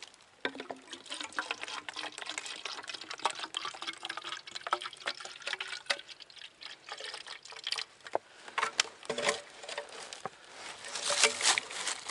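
A small spring trickling weakly, water dribbling and splashing, with many short clicks and knocks mixed in.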